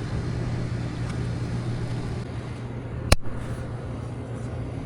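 Steady low hum of an outdoor air-conditioning condensing unit running, with a single sharp click about three seconds in.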